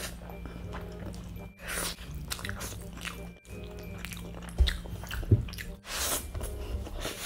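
A man chewing and biting into a saucy chicken leg close to the microphone, with background music underneath; a couple of sharper, louder sounds come a little past halfway.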